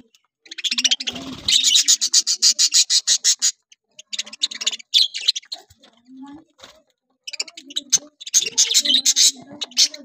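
A flock of budgerigars chattering, a fast scratchy warble that comes in three stretches with short pauses between.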